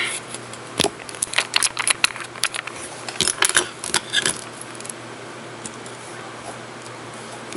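Long fingernails clicking and tapping on a glass nail polish bottle and its plastic cap as it is handled and stood on a paper towel. A quick run of sharp clicks fills the first half, then only a few faint taps.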